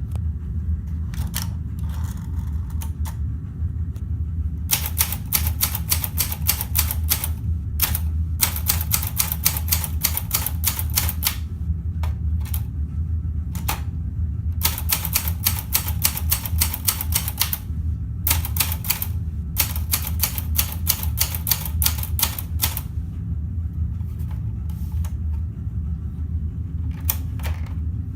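Olympia Traveller C portable manual typewriter being typed on: runs of rapid key strikes about three seconds long, broken by short pauses and a few single strikes. A steady low hum sits underneath.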